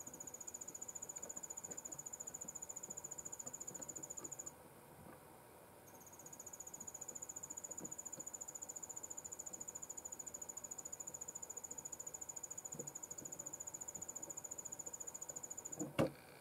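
High-pitched insect trill, like a cricket's, pulsing rapidly on one steady note; it breaks off for about a second and a half and then resumes. A sharp thump near the end is the loudest sound.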